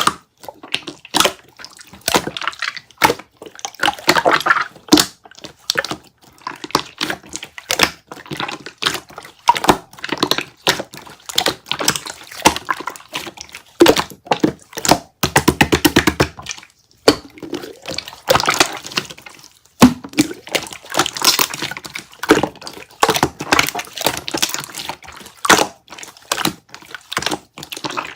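Slime being squeezed, stretched and poked, making a dense run of wet clicks, pops and crackles of trapped air, with a fast even rattle of clicks about halfway through.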